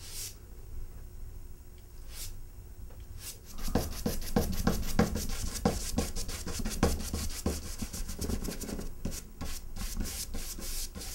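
A drawing stick scraping on paper: a couple of single strokes, then from about three seconds in a quick run of short, scratchy back-and-forth rubs, several a second.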